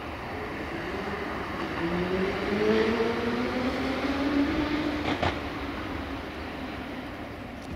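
Diesel locomotive engine throttling up over a steady rumble, its pitch rising steadily for about three seconds. A sharp click just after it.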